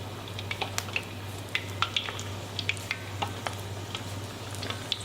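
Starch-coated pork pieces deep-frying in hot oil at about 160 °C: scattered pops and crackles over a steady low hum.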